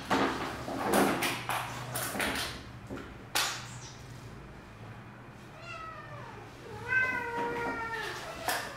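A cat meows twice, a short falling meow and then a longer one lasting about a second. Before the meows come scattered knocks and rustling, with a sharp knock about three and a half seconds in.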